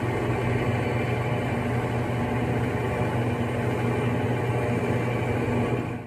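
Electrolux LTE09 top-load washing machine running, a steady motor hum with a constant low tone.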